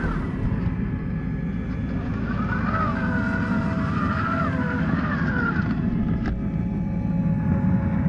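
Electric motor and gear drivetrain of a Traxxas TRX-4 scale RC crawler whining as it drives through snow, the whine rising and falling in pitch with the throttle a few seconds in, over a steady low rumble.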